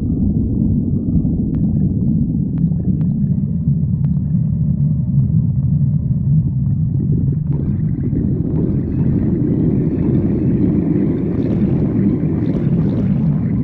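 Human stomach growling: a continuous low rumbling gurgle, joined from about eight seconds in by a brighter, hissier gurgling.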